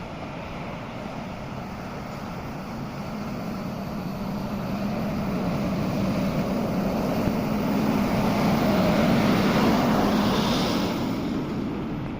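A heavy vehicle's engine running steadily, growing louder to a peak about nine seconds in and then easing off.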